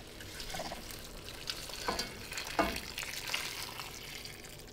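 Hot beef stock being poured from a saucepan into a pot of stew: a steady pour and splash of liquid with a few louder splashes around two seconds in.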